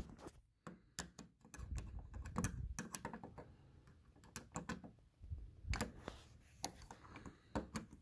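Scattered light clicks and taps of a metal tool working against a brass doorknob, with a lull about halfway through.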